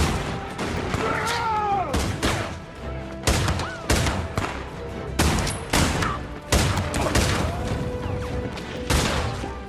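Movie gunfight sound mix: gunshots going off irregularly, about one or two a second, each with a short echoing tail, over an orchestral score.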